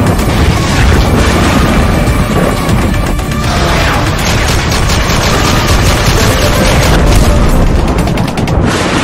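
Logo-intro sound design: loud cinematic music with heavy booms and rapid gunfire effects, the rapid strikes running through the second half.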